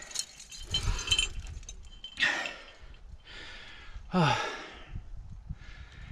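A climber's hard breathing: a run of heavy, breathy exhales about a second apart, with one voiced sigh falling in pitch about four seconds in.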